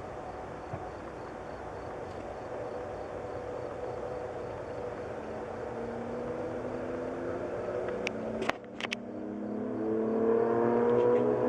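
A motor vehicle's engine running, rising in pitch and getting louder as it accelerates in the second half, with a few sharp clicks about eight and a half seconds in.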